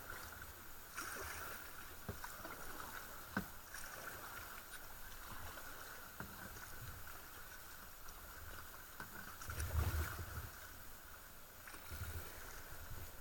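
Kayak paddle strokes dipping and pulling through calm river water, with soft irregular splashes and a few sharp knocks, heard from an action camera on the kayak's deck; the strongest stroke comes about ten seconds in.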